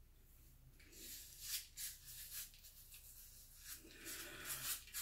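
Razor blade scraping through lathered stubble on a shaved scalp in a series of short strokes, starting about a second in.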